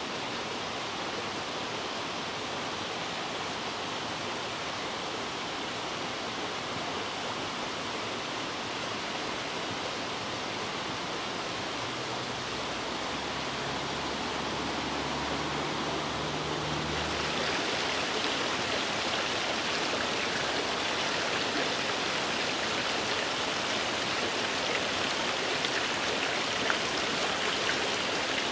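Steady rush of flowing water, getting louder and hissier about two-thirds of the way through. A faint low hum is heard briefly around the middle.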